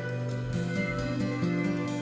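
Background music: an instrumental with held notes that change pitch every half second or so.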